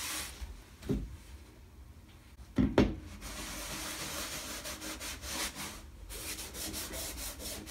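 Cloth rubbing wax medium over a watercolor mounted on a wooden cradled board, a steady rub in circular strokes that starts in earnest about three seconds in. Two low thumps come before it, about a second and nearly three seconds in.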